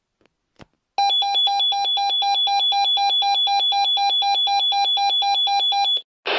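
Swissphone Quattro XLSi fire-brigade pager sounding its alert tone for a test group call: rapid beeping, about five short tones a second alternating in pitch, for about five seconds. A faint click comes just before it starts and a short knock just after it stops.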